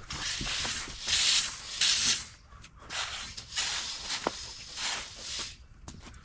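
A rake scraping through river rock, spreading it by hand in repeated rasping strokes about one a second, with a sharp click of stone about four seconds in.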